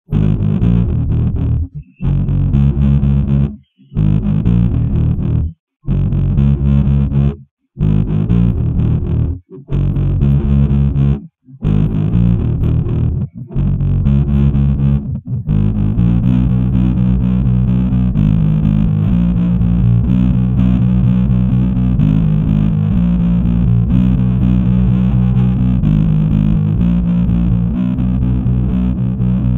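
Instrumental rock track with the vocals stripped out: distorted electric guitar and bass play a stop-start riff, cutting to silence every couple of seconds. About halfway through the riff turns continuous.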